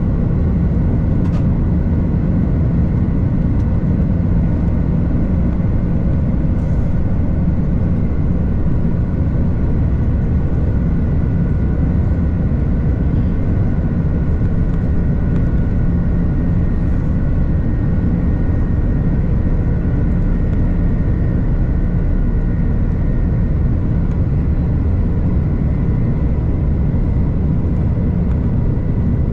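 Steady jet airliner noise: a continuous low rumble with several faint, steady whining tones above it, unchanging in level.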